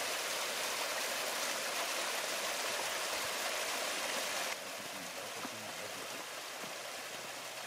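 Small woodland waterfall splashing down mossy rock steps: a steady rush of water. About halfway through it cuts off abruptly to a softer, steady hiss.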